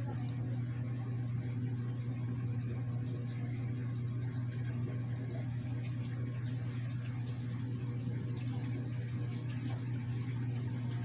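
A steady low hum from a running motor, unchanging throughout.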